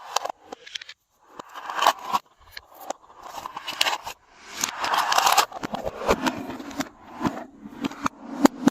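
Glossy slime being squeezed and stretched by hand, giving sticky crackling and popping, with a quick run of clicks near the end.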